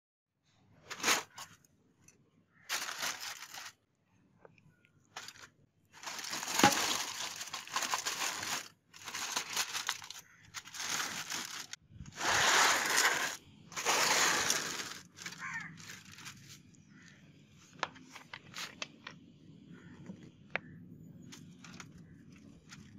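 Aluminium foil being crinkled and handled in a series of loud rustling bursts of half a second to two seconds, then a few light clicks and taps in the last third.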